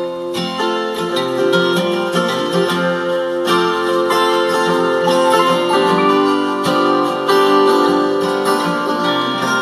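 Music with plucked acoustic guitar playing.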